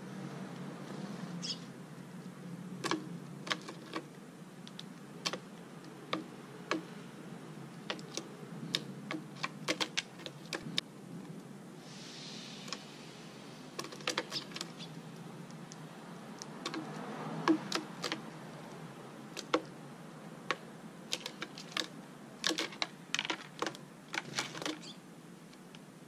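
Irregular sharp taps and clicks, single and in quick clusters: tree sparrows pecking grain off a concrete floor. A short rustling burst comes about twelve seconds in.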